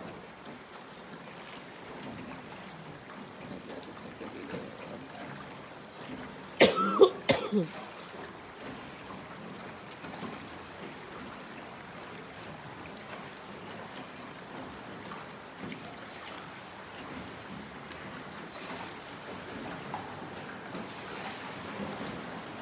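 A person coughs and clears their throat about seven seconds in. That is the loudest sound here. Under it runs a soft, steady sound of water around the boat.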